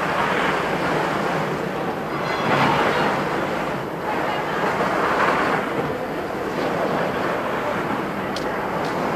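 Jacket fabric rubbing over the microphone of a camera carried in a pocket as the wearer walks: a steady rustling hiss that swells every second or two.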